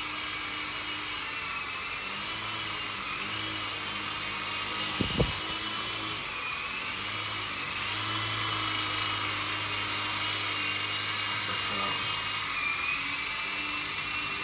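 Small RC toy helicopter's electric motors and rotors whining in flight, the pitch wavering up and down. A brief knock comes about five seconds in.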